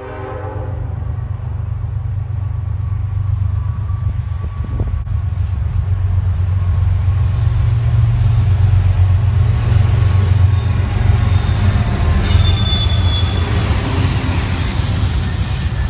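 Freight train led by CN diesel locomotives approaching and passing: a low engine rumble that grows steadily louder, joined about twelve seconds in by the hiss of wheels on rail and a brief high squeal as the locomotives go by.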